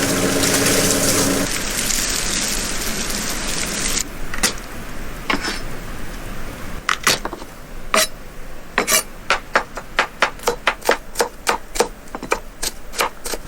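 Steady machine-like noise that cuts off about four seconds in, then a run of sharp knocks or taps, sparse at first and coming about two a second near the end.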